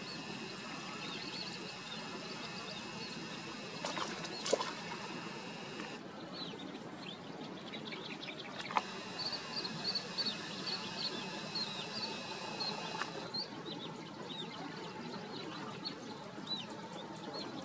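Wetland outdoor ambience: small birds chirping, short high chirps repeated over and over against a steady hiss. Two sharp clicks, about four and nine seconds in.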